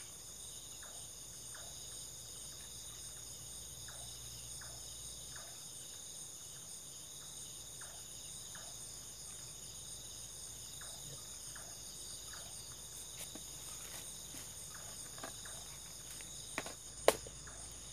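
Night insect chorus, a steady high-pitched shrilling of crickets in several layered bands. Faint scattered ticks run through it, and there is one sharp click near the end.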